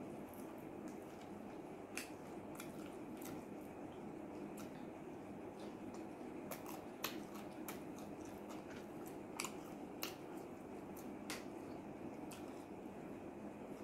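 Mouth sounds of someone eating fried chicken by hand: chewing with scattered sharp, wet clicks and lip smacks, over a steady low background noise.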